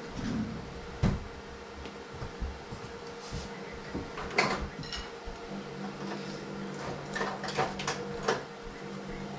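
Clicks and knocks of buttons and faders being worked on a DMX lighting console, with a sharp knock about a second in, over a steady hum. A second, lower hum joins about halfway through.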